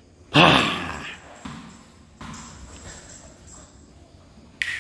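A short burst of voice, then a small ball bouncing and skittering across a tiled floor in a large hall, with a few separate knocks and a sharp click near the end.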